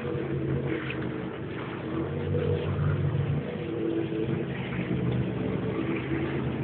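Jet ski engine running, its pitch shifting a little up and down.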